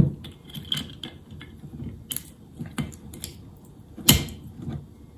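A glass bottle and a drinking glass handled on a table: scattered light clicks and taps, with a sharper knock about four seconds in.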